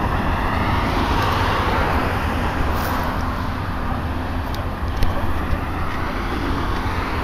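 Hyundai 360 LC-7A hydraulic excavator's diesel engine running steadily as it works its loaded bucket, mixed with a van's tyres and engine passing close by in the first couple of seconds. A sharp knock about five seconds in.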